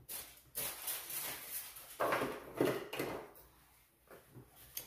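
Handling noise: rustling and light knocks of things being moved and picked up from a table close by, loudest around two to three seconds in, with a few quieter knocks near the end.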